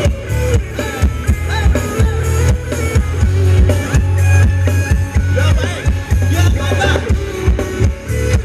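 Live band playing Thai ramwong dance music, with a steady drum beat over a strong bass line and gliding melody lines above.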